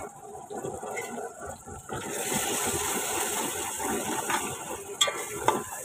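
Chopped tomatoes sizzling and bubbling in oil in an aluminium cooking pot. A metal spoon stirs them, with a couple of light knocks against the pot near the end.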